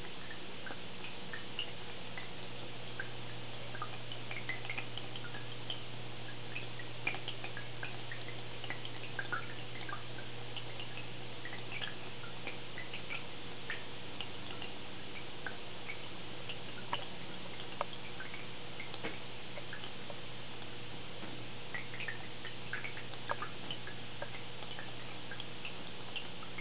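Aquarium filter running: a steady low hum with irregular small drips and bubble pops of water throughout.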